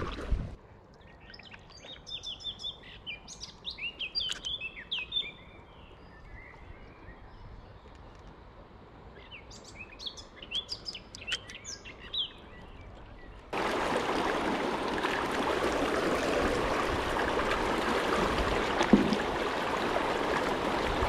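Birds chirping in two bursts over a quiet river. About two-thirds of the way through, a loud, steady rush of fast-flowing river water starts abruptly around the inflatable paddle board.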